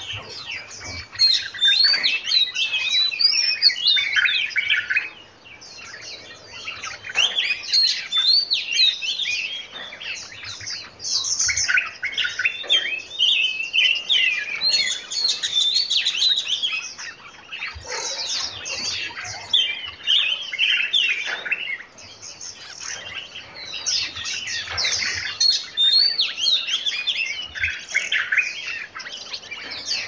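Several songbirds chirping and singing at once in quick, overlapping warbled phrases, with short lulls every few seconds.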